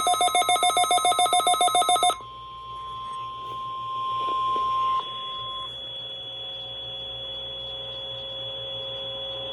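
A weather radio receiver's alarm beeps rapidly, several tones at once, for about two seconds. The NOAA Weather Radio 1050 Hz warning alarm tone then plays steadily through the radio's speaker, swells and cuts off about five seconds in, leaving low hiss. This is the alarm tone that activates weather receivers during the weekly test.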